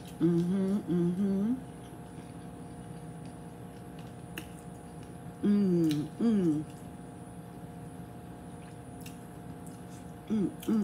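A woman humming short closed-mouth 'mmm' sounds of enjoyment while eating, each hum gliding in pitch. There is a quick run of three at the start, two about halfway, and two near the end, with a soft click in between.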